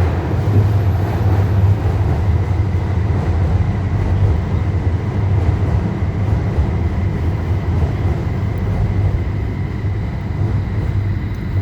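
Guangzhou Metro Line 5 third-rail train pulling into the station platform: a loud, steady rumble with a low hum, and a faint steady high-pitched tone above it.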